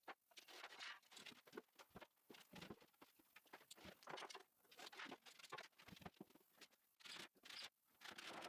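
Faint, irregular taps, scrapes and rustling of things being handled, several small knocks a second with no steady machine sound.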